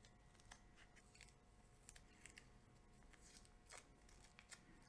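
Very faint crackles and a few soft clicks of masking tape being peeled off a spray-painted wooden ball.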